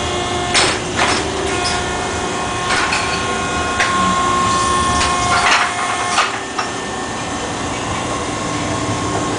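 Repair-shop background noise: a steady mechanical hum carrying several faint whining tones, broken by about six short noisy bursts in the first six seconds.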